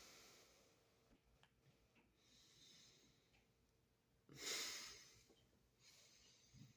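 A man's quiet breathing, mostly near silence, with one louder, hissy breath about four and a half seconds in.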